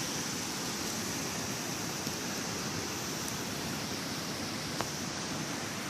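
Steady rush of river water, an even noise throughout, with a single faint tick about five seconds in.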